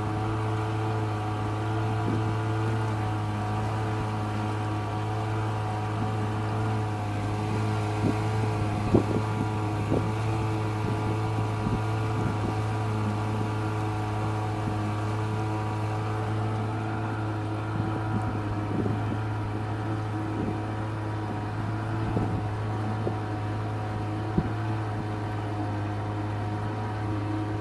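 A boat's engine running steadily with a constant low hum, with a few short knocks here and there.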